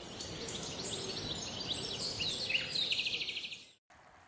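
Outdoor ambience of small birds chirping over a steady high hiss, with a fast trill near the end. The sound cuts off abruptly about four seconds in.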